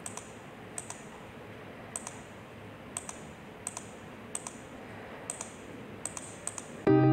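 Computer mouse buttons clicking, a quick press-and-release pair roughly once a second, over a faint steady hiss. Just before the end, loud guitar music starts abruptly.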